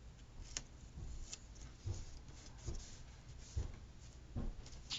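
Faint scattered taps and light paper handling as a sticker is moved and pressed down onto a planner page.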